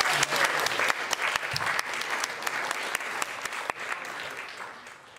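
Audience applauding, a dense patter of clapping that fades out toward the end.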